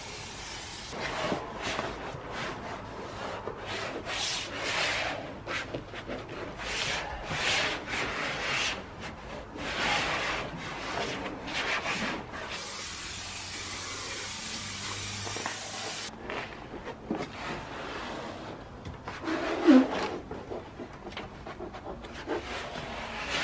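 Hands rubbing and pressing vinyl lino flooring down onto a plywood van floor in repeated irregular sweeping strokes, bedding it into spray contact adhesive. A steady aerosol hiss from the spray adhesive can comes at the start, and a similar hiss lasts a few seconds around the middle. There is a short louder bump about three-quarters of the way through.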